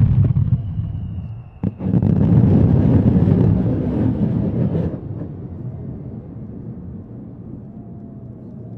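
Fireworks shells bursting overhead: a continuous low rumble with crackle, broken by one sharp bang about a second and a half in, then dying down to a quieter rumble about five seconds in.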